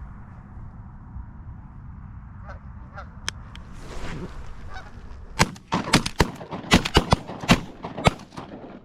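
Canada geese honking: a few faint honks at first, then a rapid string of loud, close honks from about halfway on, over a steady low rumble.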